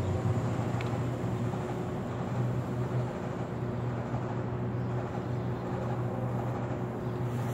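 Steady city street noise: a low, even rumble of traffic with a constant hum.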